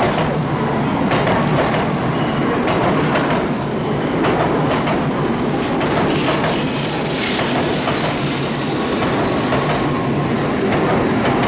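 A Tokaido Shinkansen train rolling slowly past at close range, its wheels clicking over rail joints and points, with steady rolling noise.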